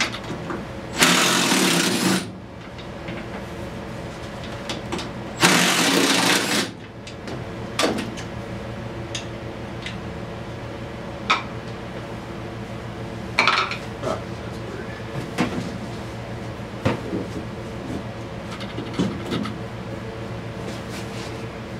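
Cordless power driver run twice, each burst about a second long and a few seconds apart, undoing fasteners on a utility vehicle's plastic console. After that, small clicks and knocks of parts being handled.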